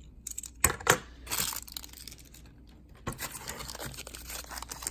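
Camera-kit packaging being handled and opened by hand: a few sharp clicks and knocks about half a second in, then crinkling, tearing rustle of wrapping from about three seconds in.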